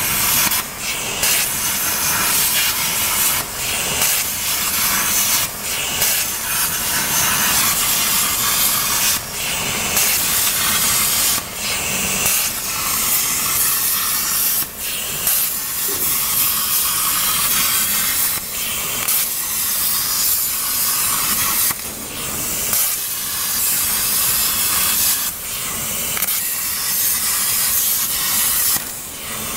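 CNC plasma cutter's torch arc cutting 2 mm galvanized sheet: a loud, steady hiss that drops out briefly every few seconds.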